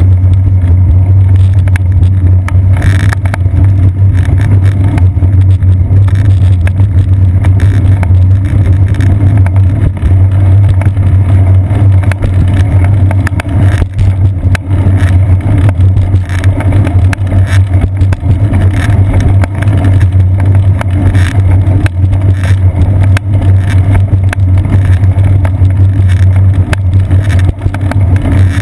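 A steady low rumble of road vibration and wind, picked up by a seat-post-mounted camera on a moving bicycle, with a few brief knocks from bumps in the pavement.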